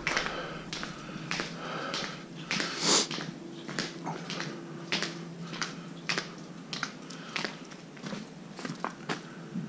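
Walking footsteps in ice cleats, a crunchy, gritty scrape at each step, at a steady pace of a little under two steps a second. The steps are on a concrete floor and then on a snowy wooden walkway near the end.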